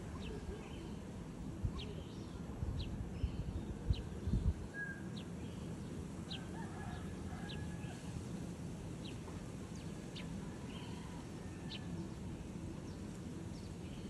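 Eurasian tree sparrows chirping: short, high single chirps about once a second, with some fainter, lower calls in the background. A couple of low thumps about four seconds in stand out above a steady low outdoor rumble.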